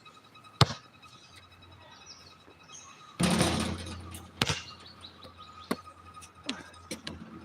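A basketball thudding on an outdoor court: single sharp bounces spaced a second or more apart, with a longer noisy rush about three seconds in.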